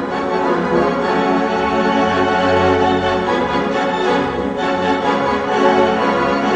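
Organ music with sustained chords, sounding like a Hammond or electronic organ, set within orchestral-style background music.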